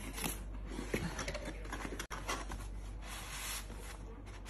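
Cardboard gift box being opened by hand: flaps and paper scraping and rustling in several short spells, the longest near the end as the inner box slides out.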